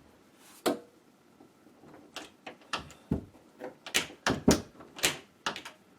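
Interior door being swung and pushed against its frame, a series of sharp knocks and clicks that come faster in the second half. The door still drags a little on the frame after its hinges were bent.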